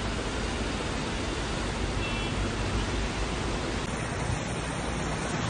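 Steady rushing of water, even and without distinct events; its tone shifts slightly about four seconds in.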